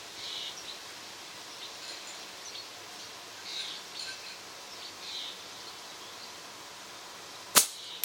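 Birds chirping now and then over steady outdoor background noise. Near the end comes one sharp, loud crack of a flatband slingshot being shot, then a much fainter click about half a second later.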